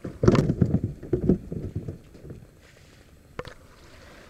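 Irregular knocks and rattles of gear being handled in a kayak for about two seconds, then quiet with a single sharp click about three and a half seconds in.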